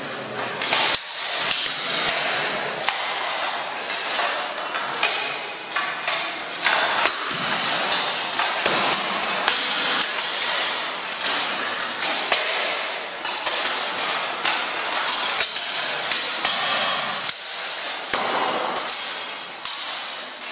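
Steel longswords striking each other and plate armour: repeated sharp metallic clangs in quick flurries, with short lulls between exchanges.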